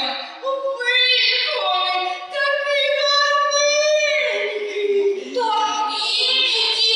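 High children's voices singing a song together, holding long drawn-out notes with short breaks between phrases.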